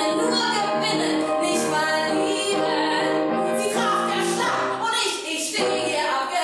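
A woman singing a German song in a trained classical voice with piano accompaniment, holding long notes, with a short break in the vocal line about five seconds in.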